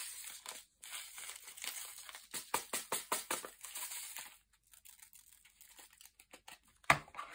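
Diamond-painting drills rattling in a plastic drill tray as it is handled, with plastic crinkling, a dense run of small clicks for about four seconds. Then come a few faint ticks and a single sharp clack near the end.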